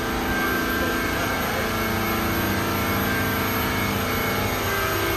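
Twin boat engines running steadily at about 3,400 rpm with the boat at speed, around 35 mph. Several steady engine tones sit over a broad rushing noise.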